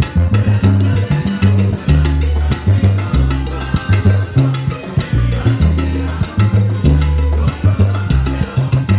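Salsa band playing live: a prominent bass line under dense, rhythmic percussion.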